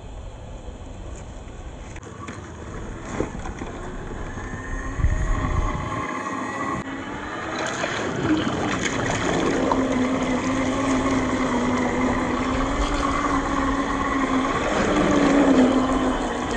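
HG P408 Humvee RC truck's stock 550 electric motor and gearbox whining as it drives, the pitch wavering with the throttle over rough noise from the running gear. The whine comes in about halfway and is loudest near the end.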